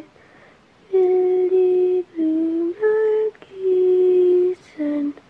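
A woman's voice singing a slow, lullaby-like melody in steady held notes, about six of them, each separated by a short break.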